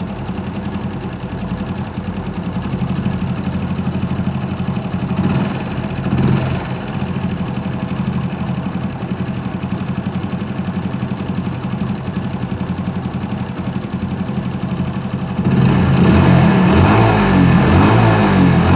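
Hero Honda CD Deluxe's single-cylinder four-stroke engine running at idle, very noisy, with a brief rise about five seconds in, then revved up and down louder for the last few seconds. The engine is eating oil and due for a piston and ring job.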